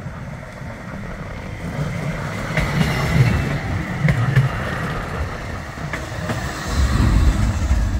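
Bombardier Flexity 2 tram passing close by: its wheels rumble on the rails, growing louder as it draws level, with a few sharp clacks over the track and a faint high whine.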